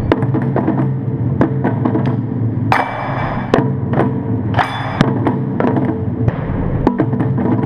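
Taiko drums struck with wooden bachi sticks in an uneven pattern of sharp hits over a steady low rumble. Two longer, ringing crashes come about three seconds in and again about a second and a half later.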